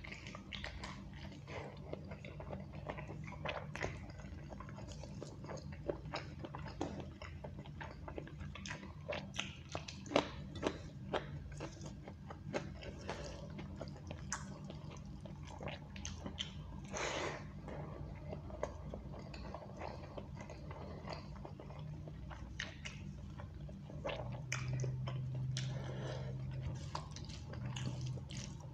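Close-miked chewing and wet mouth sounds of rice and egg curry being eaten by hand, many quick smacks and clicks. There is squishing as the fingers mix rice into the gravy on a steel plate. A low hum swells for about two seconds near the end.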